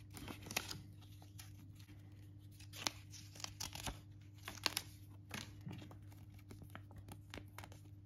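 Folded paper manual and leaflets handled by hand: faint rustling and crinkling of paper, with scattered small ticks as sheets are flipped and snapped flat.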